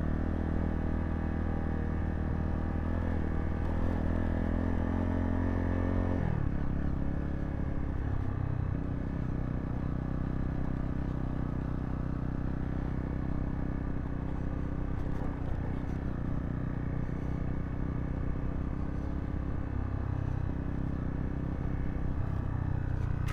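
Zontes T2 350 motorcycle's single-cylinder engine running while riding. About six seconds in, the engine note drops and it runs on at lower, varying revs.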